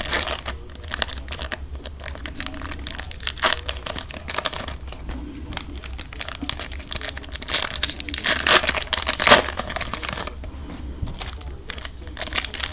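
Foil trading-card pack wrappers being torn open and crinkled in the hands: a continuous run of crackling and rustling, loudest about eight to nine seconds in, over a steady low hum.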